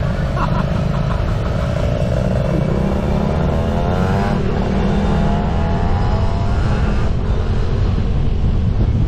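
Motorcycle engine accelerating under heavy wind rumble on the microphone. Its pitch climbs for a few seconds, drops at a gear change about four seconds in, then climbs again until about seven seconds in.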